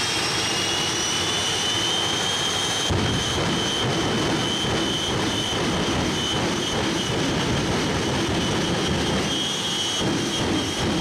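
The jet engines of a three-engine jet truck running at high power while it stands still, with afterburner flames lit: a loud, steady roar under a high whine. About three seconds in, the roar grows deeper and rougher.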